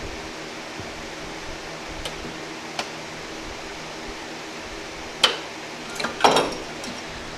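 A few sharp metallic clinks and a short clatter from engine parts and tools being handled during a bottom-end teardown. A steady fan-like hum runs underneath.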